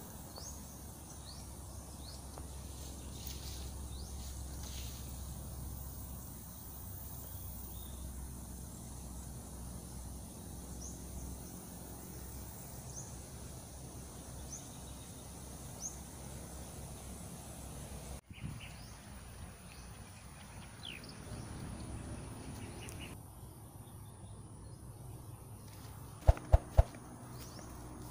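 Rural outdoor ambience: birds chirping now and then over a steady high insect drone and a low rumble. About two seconds before the end comes a quick run of sharp knocks.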